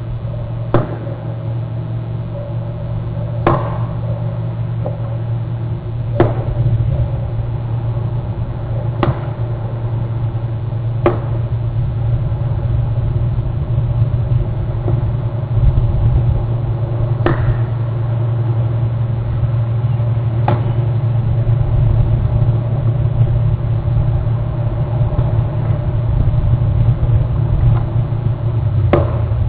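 A steady low rumble, with a sharp click now and then, every few seconds.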